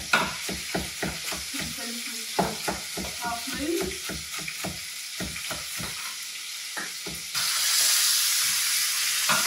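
Kitchen knife chopping celery on a wooden board, about four quick cuts a second. About seven seconds in it gives way to duck legs sizzling steadily in a hot frying pan as they brown.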